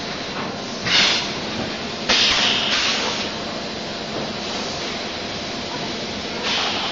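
DKW12T six-head extrusion blow moulding machine running, with sharp hisses of compressed air venting from its pneumatics: a short one about a second in, a longer one lasting about a second from two seconds in, and another near the end, over a steady machine noise.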